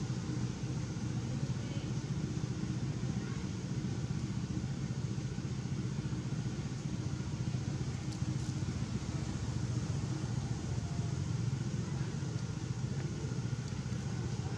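Steady low engine rumble of a motor vehicle running, with no changes in pitch or level.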